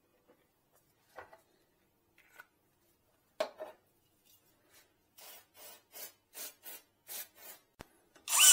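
Tools being handled with a few knocks, then a run of short scraping strokes, about three a second, and a sharp click. Near the end a cordless drill-driver starts up loudly against the bar stool's metal base.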